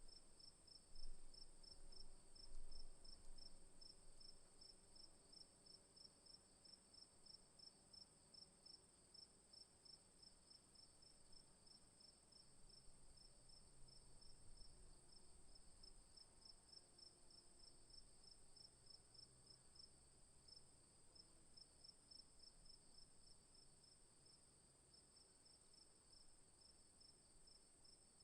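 Crickets chirping in a faint, continuous chorus: one steady high trill, with a second insect chirping in a quick, regular rhythm just below it. Two low bumps come in the first few seconds.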